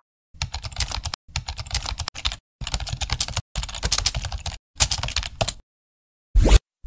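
Rapid clicking in five bursts of about a second each, separated by dead-silent gaps, then one short sharp burst near the end.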